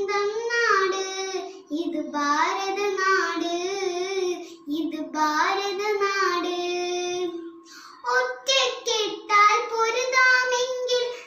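A young girl singing unaccompanied, holding long notes in phrases of a few seconds with short pauses for breath between them.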